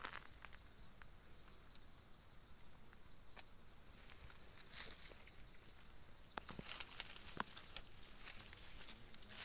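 Steady, high-pitched chorus of insects singing at dusk, broken by scattered short rustles and clicks, several of them coming close together past the middle.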